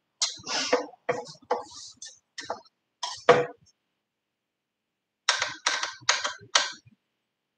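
Short clicks and clatters of a small wrench and metal parts as the hoop arm of a BAI multi-needle embroidery machine is unscrewed and taken off. An irregular run of them comes in the first three and a half seconds, then four quick ones about half a second apart near the end.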